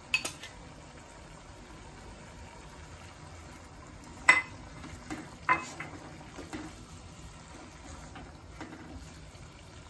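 A steel ladle stirring fried tiger prawns into simmering curry gravy in a kadai. The gravy bubbles steadily, and the ladle knocks sharply against the pan a few times, loudest about four seconds in.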